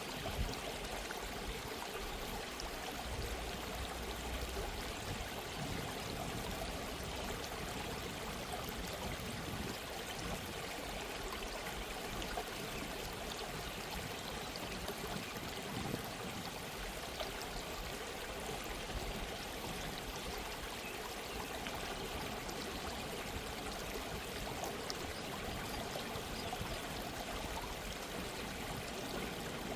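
Gentle stream of running water babbling steadily over stones.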